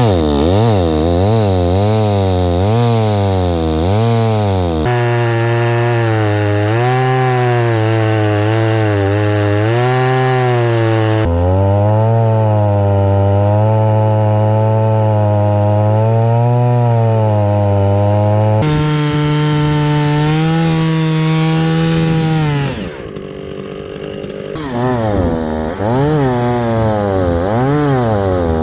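Two-stroke chainsaw cutting stumps at high revs, its engine pitch sagging and rising as the chain loads up in the wood. It runs in several abruptly joined stretches and dips briefly near the end before revving again.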